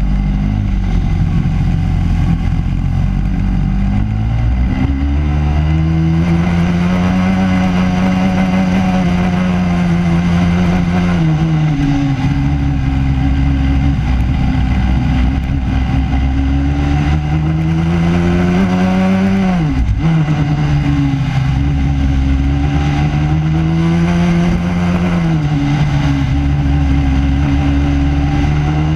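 Racing kart engine heard onboard at racing speed, its pitch climbing along the straights and falling off as the driver lifts for the corners, with a sharp drop about two-thirds of the way through.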